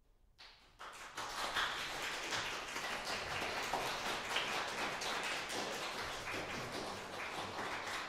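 Audience applauding, breaking out about half a second in after the piano's last chord has died away and continuing steadily.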